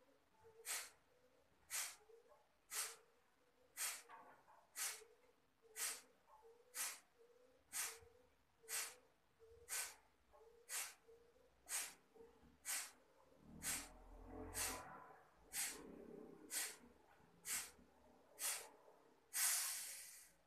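Kapalbhati breathing: a round of about twenty short, forceful exhalations through the nose, about one a second, each a sharp hiss with quiet passive inhalations between. The round ends with one longer, louder exhale.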